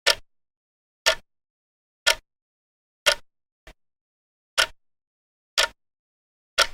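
Vintage mechanical clock ticking about once a second: sharp, even ticks with silence between them, and one faint extra click between the fourth and fifth tick.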